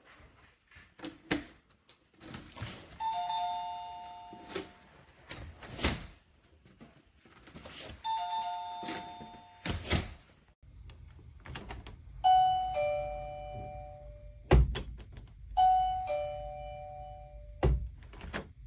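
Wireless door-chime receiver sounding a two-note ding-dong four times, each time a higher note followed by a lower one; the last two chimes are pitched lower than the first two. Sharp knocks and clicks come between the chimes.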